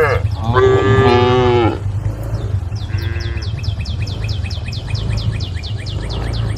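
A cow mooing: one loud call of about a second, falling slightly in pitch near its end, starts about half a second in, and a short, faint moo follows about three seconds in. After that comes a rapid run of high chirps, about six a second, over a steady low hum.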